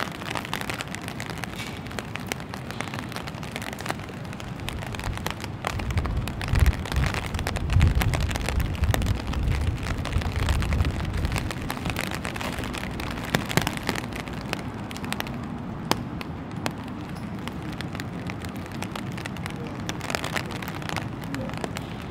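Rain falling on an open umbrella overhead, the drops striking it in a dense run of sharp ticks over the hiss of rain on wet pavement. A low rumble swells in from about six seconds and fades out about twelve seconds in.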